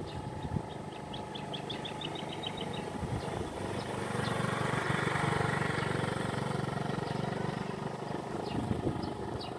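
Automatic scooter's small engine running as it rides past close by, loudest about four to six seconds in. A bird gives a quick run of high chirps in the first few seconds.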